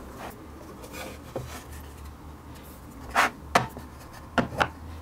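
Parts being handled against a wooden MDF box: faint rubbing, then four short knocks in the second half.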